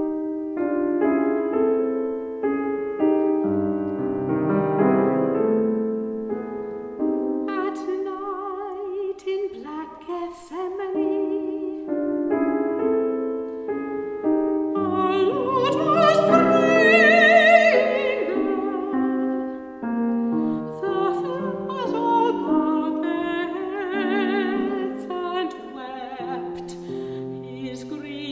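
Grand piano playing a short introduction, then a soprano entering about seven seconds in and singing an English art song with a wide vibrato over the piano accompaniment. Her line climbs to a loud, high held note about halfway through.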